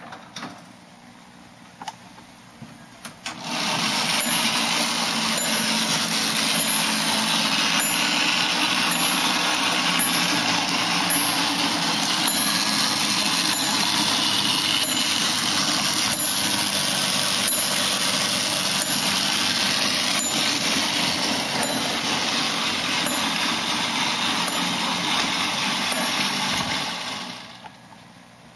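Small battery-powered electric motor and gear mechanism of an antique coin-operated moving model locomotive running steadily. A few clicks come first, then the machine starts a few seconds in and runs evenly until it stops shortly before the end.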